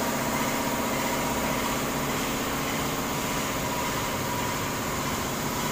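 Yamaha Sniper 150 motorcycle engine running steadily under a broad rush of road and wind noise. It cuts off suddenly near the end.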